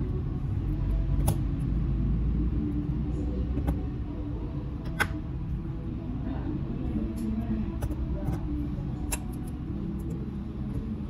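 Steady low rumble with a handful of sharp clicks scattered through it, the loudest about halfway.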